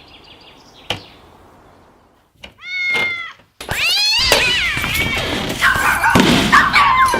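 Cat meowing: a single meow about two and a half seconds in, then a longer run of loud, wavering meows from about three and a half seconds on. A sharp click comes about a second in.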